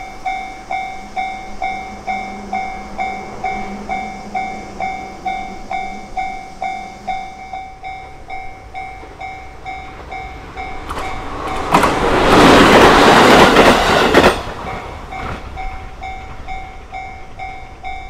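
Japanese railway crossing alarm ringing its repeated electronic two-tone bell, about three strikes a second. From about twelve seconds in, a train runs through the crossing for about three seconds, the loudest sound, drowning the bell, which rings on after it has passed.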